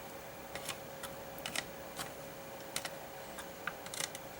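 Light, scattered clicks of multimeter test probes tapping the legs of the amplifier's output transistors, with no continuity beep: the transistors are not shorted.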